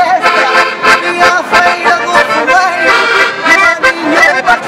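Ranco button accordion playing a lively traditional Portuguese folk tune, melody over a steady beat of bass and chord notes.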